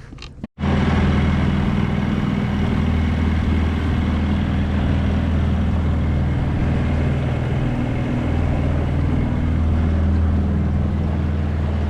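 Boat motor running steadily at a constant pitch, starting abruptly about half a second in.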